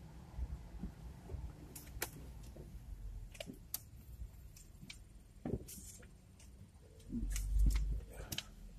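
Low rumble inside a car's cabin with scattered light clicks and knocks, and a louder low rumble for about a second near the end.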